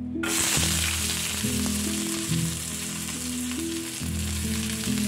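Sliced shallots dropped into hot oil with mustard seeds in a frying pan, setting off a loud sizzle that starts suddenly just after the start and keeps going steadily.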